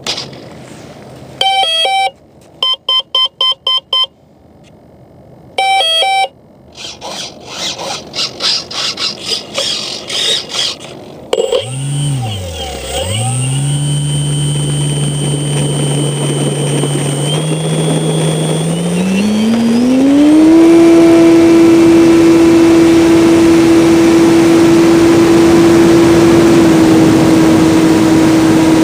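Electric motor of an RC model plane: a few short electronic beeps, a few seconds of rapid clicking, then the motor spins up with a whine that climbs in pitch about twenty seconds in and holds steady at high throttle.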